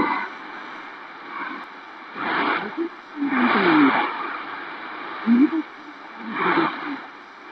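Shortwave broadcast heard through a portable radio's speaker: the music stops right at the start, leaving steady static hiss, through which a few short snatches of an announcer's voice come, with pauses between them.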